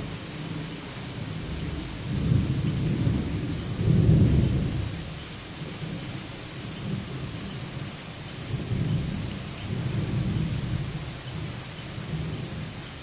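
Heavy rain falling on paving, with thunder rumbling in several slow swells, the loudest about four seconds in.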